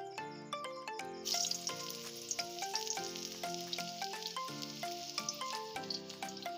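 Food starts sizzling in hot cooking oil about a second in and keeps frying steadily, a sauté under way in the pan. Background music with even, plucked-sounding notes plays throughout.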